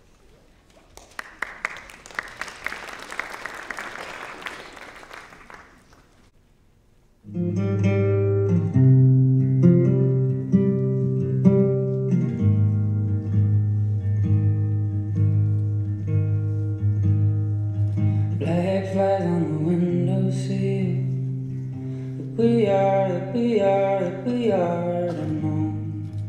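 Audience applause for a few seconds, then a short hush, then an acoustic guitar song starts about seven seconds in, with a singing voice joining later over the steady guitar.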